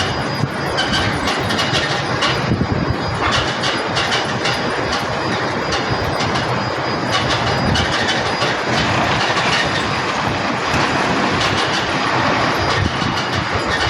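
Concrete mixer truck running, a steady heavy rumble with frequent rattling clicks and knocks throughout.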